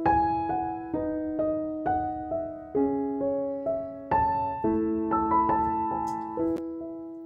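Background piano music: a gentle melody of struck notes and chords, each left to ring and fade.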